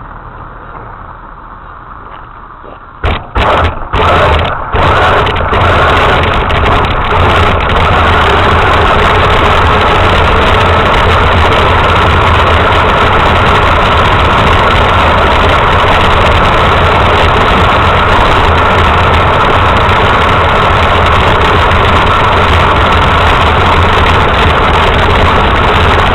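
RC truck's motor running steadily and loudly. It starts about three seconds in with a few short bursts, then holds a steady drone.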